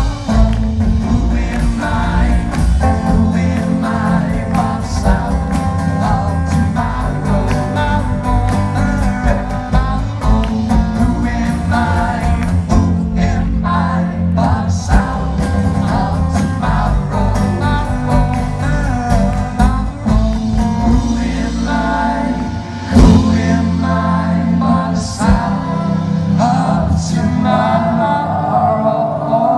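Live band playing a song with singing, with a sudden loud accent about two-thirds of the way through.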